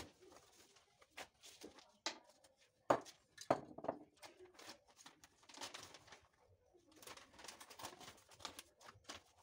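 Paper rustling and crinkling in short bouts, broken by scattered taps and knocks of things being handled on a worktable, the loudest knocks about three seconds in.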